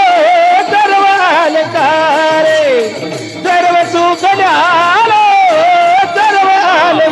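A voice singing a drawn-out, ornamented line of a Marathi abhang in kirtan style, the pitch sliding and wavering with no clear words. Near the middle it glides down, and the singing drops briefly before going on.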